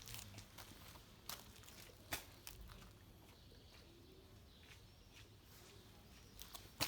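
Near silence with a few faint, short, scattered taps.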